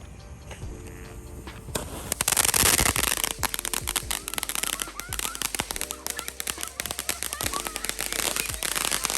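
Consumer fireworks going off: a loud burst about two seconds in, then a dense, rapid crackle of pops.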